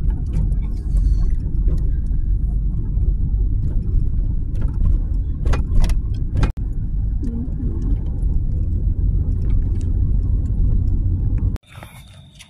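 Car cabin noise while driving: a steady low rumble of engine and tyres on the road, with a couple of sharp clicks about five and a half seconds in. It cuts off abruptly near the end, giving way to a much quieter background.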